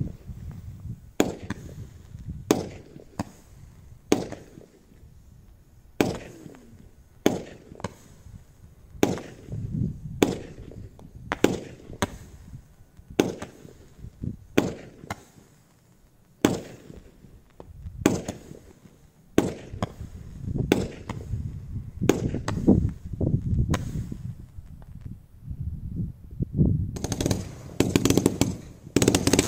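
Low-noise consumer fireworks going off: a string of sharp pops about one a second as shots are fired and burst, each with a short low tail. Near the end a dense crackling sets in.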